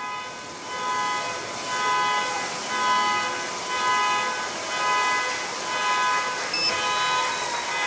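Many car horns sounding together in long held blasts at several pitches, swelling and fading about once a second.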